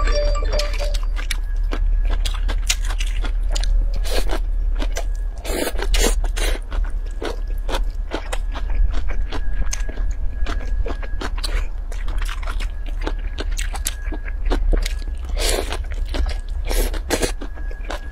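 Close-miked eating of a spicy cold noodle salad: wet chewing with many quick mouth clicks and smacks, and a few longer, louder mouthfuls. A steady low hum runs underneath.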